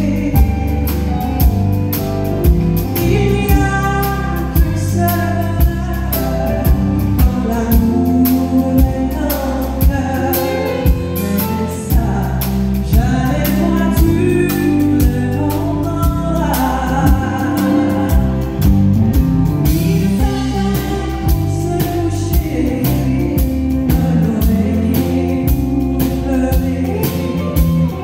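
A woman singing lead into a microphone with a live country band, guitars and drums keeping a steady beat.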